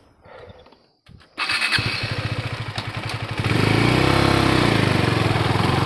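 Motorcycle engine coming in abruptly about a second and a half in, running with a fast low beat, then growing louder about halfway through as the revs rise and fall.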